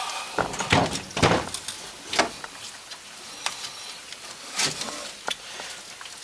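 Several separate metal knocks and clunks of a side-by-side's engine being worked back and forth against the frame as it is wiggled loose. The loudest knocks come in the first second and a half.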